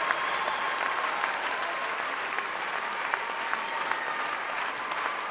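Large theatre audience applauding steadily, a dense even clatter of many hands clapping at once, easing slightly near the end.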